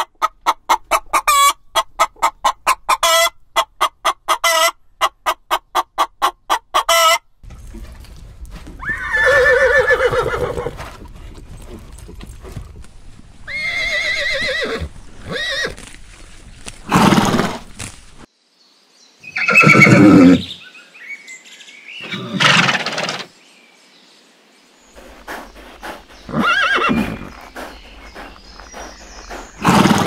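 A hen clucking in a rapid, even run for about seven seconds, then horses neighing and whinnying, about seven separate calls spaced a few seconds apart.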